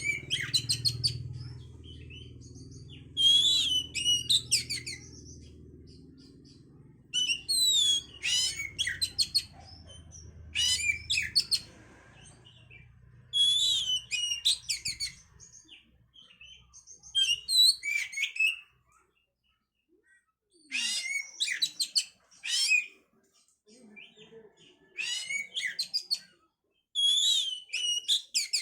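Oriental magpie-robin (kacer) singing in a string of short, varied phrases of rapid whistles and chattering notes, one phrase every few seconds. A low hum runs under the first half.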